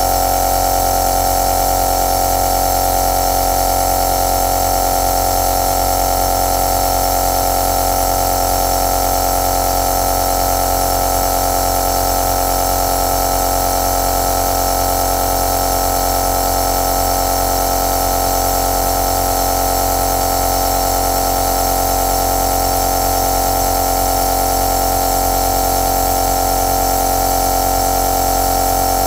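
Compressor nebulizer running steadily: a constant machine hum with a strong mid-pitched tone and an even hiss of air.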